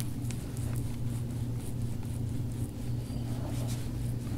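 A steady low hum, like a small motor or fan, with faint light brushing strokes over it.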